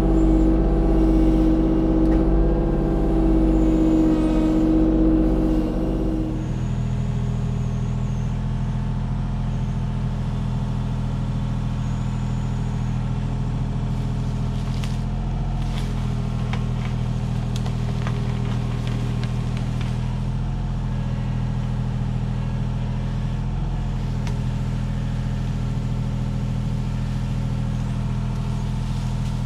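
Kubota U35-4 mini excavator's diesel engine running under hydraulic load with a strong steady whine. About six seconds in, it drops to a steadier, lower hum.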